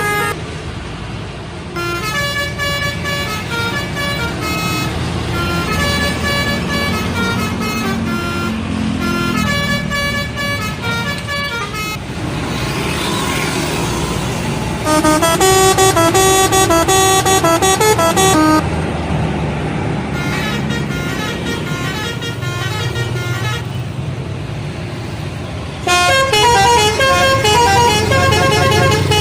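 Indonesian bus telolet horns playing quick, tune-like runs of notes, several different horn sequences one after another, over the low running of bus engines. The loudest runs come about halfway through and again near the end.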